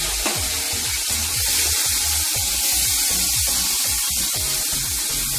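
Chopped snake gourd, tomato, onion and chilli sizzling loudly and steadily in hot oil in a frying pan as they are stirred with a spatula, just after going in. Background music with a steady beat plays underneath.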